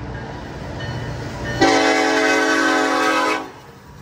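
Union Pacific diesel locomotive leading a freight train, with a low rumble as it approaches. About a second and a half in it sounds one horn blast of roughly two seconds, a chord of several tones, which cuts off shortly before the end.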